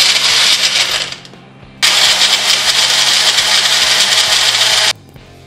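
Push-down personal blender running at full speed while blending yogurt and ice cubes. It cuts out about a second in, starts again just under a second later, runs about three seconds and stops.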